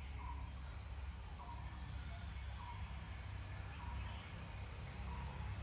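An animal call, a short single note repeated about every second and a quarter, over a low rumble of wind on the microphone.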